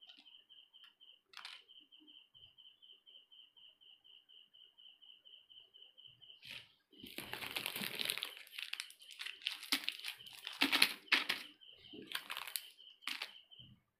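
Plastic sweet wrappers crinkling and rustling in several bouts from about seven seconds in, as wrapped candies are heaped together. Before and between the bouts, a high, evenly pulsed chirping, about four or five pulses a second, goes on in the background.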